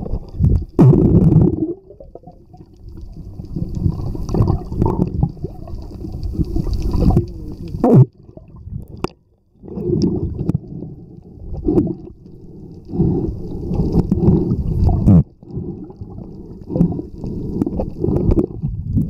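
Muffled underwater sound of water churning and gurgling bubbles, picked up by a submerged camera. It comes in uneven surges, with a few sharp clicks.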